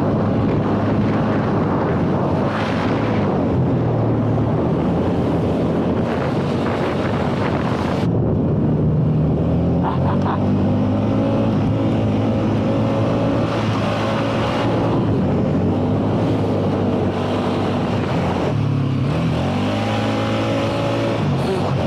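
ATV engine running under changing throttle while riding, its pitch rising and falling, with wind buffeting the microphone.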